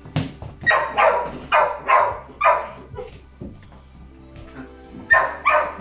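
A dog barking: a quick run of about six loud barks, a pause, then two more barks near the end.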